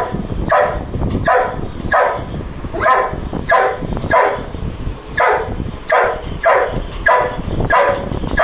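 Doberman barking angrily over and over at a lizard on the window, a steady run of about twelve loud barks, roughly one and a half a second.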